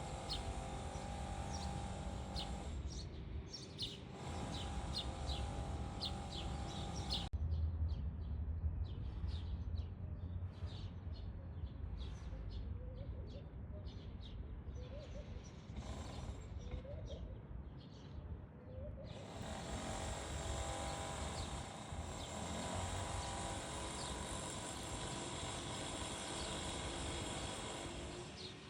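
Small birds chirping in short, repeated calls over a steady low rumble of outdoor background noise. The background changes abruptly about 7 seconds in and again about 19 seconds in.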